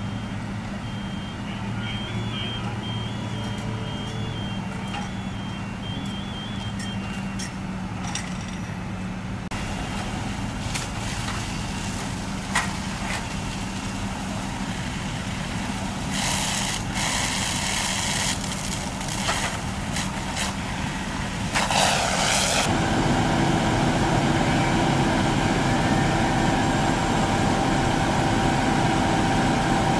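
Fire engines running steadily with a low engine drone, with an intermittent high electronic beeping over the first several seconds and brief bursts of hiss midway. From about 22 seconds in the engine drone is louder and closer, with a steady held tone.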